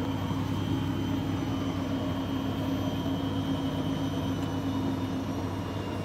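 Grundig front-loading washing machine running with water in the drum: a steady low motor hum, with a faint high whine that fades out about four and a half seconds in.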